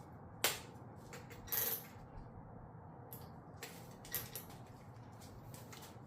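A socket wrench on 10 mm nuts and small parts clicking and clattering against metal and plastic: a sharp click about half a second in, a short scraping rattle around a second and a half, and a few lighter clicks near four seconds.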